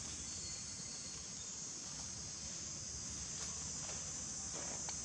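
Steady high-pitched drone of insects in the trees, with a few faint rustles and ticks of dry leaves near the end as monkeys move over the leaf litter.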